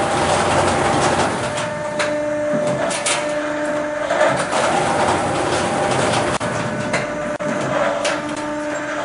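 Automatic sheet-metal duct production line running: a continuous machine drone with a steady whine that breaks off and resumes, and a few sharp metallic knocks.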